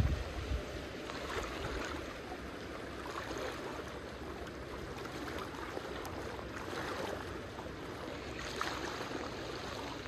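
Floodwater flowing and rushing steadily past, a constant even noise.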